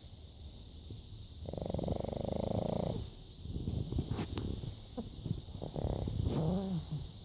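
Sleeping pug snoring: a long, fluttering snore about a second and a half in, then a run of irregular short snorts and snuffles, with a brief squeaky note near the end.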